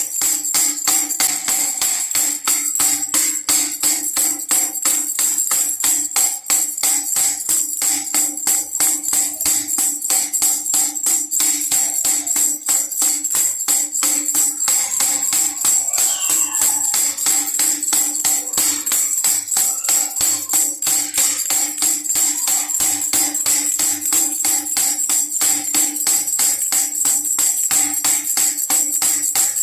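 Baby rattle shaken over and over in a fast, even rhythm, a bright jingling rattle, with a steady held musical tone underneath.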